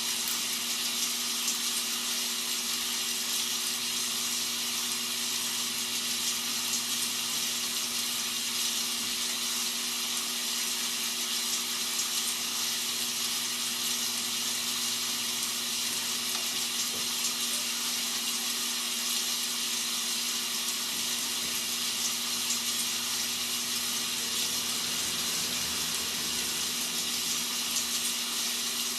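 Rain sound effect played as white noise: a steady, even hiss of rainfall that does not change.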